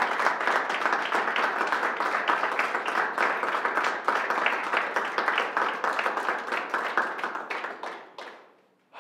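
Audience applauding: a steady round of clapping that dies away near the end.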